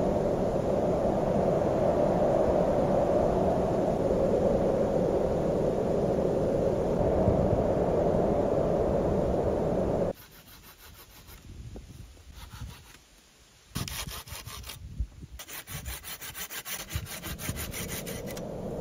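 A steady rushing noise that cuts off abruptly about ten seconds in. Near the end, a hand saw cuts wood in quick rhythmic strokes, with a brief pause between two runs.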